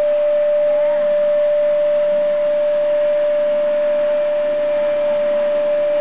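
Small canister vacuum cleaner running steadily: a constant motor whine over a hiss of suction air.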